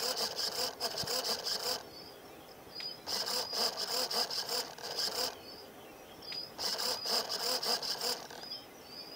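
An insect's rasping, buzzing call in bursts of about two seconds, repeating every three to four seconds, with faint high chirps in the gaps.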